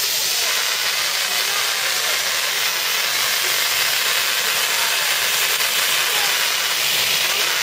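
Fine water spray hissing steadily as it showers an Asian elephant's head and hide.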